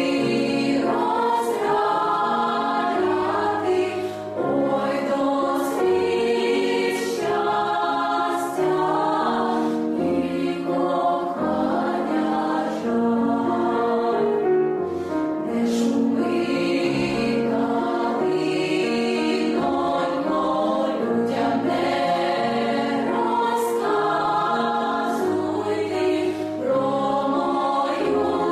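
A girls' choir singing a Ukrainian song in several-part harmony, with long held notes that change about every second.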